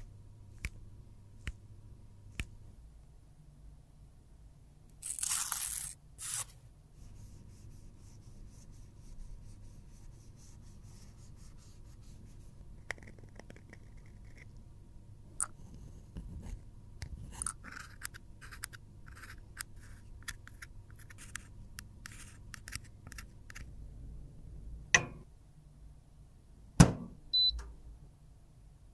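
Plastic eyeshadow palettes being handled, with scattered clicks and taps and a brief scraping rush about five seconds in. Then comes a run of quick scratchy clicks as a thin metal tool scrapes glittery eyeshadow out of its pans. Near the end there are two sharp knocks and a short high beep.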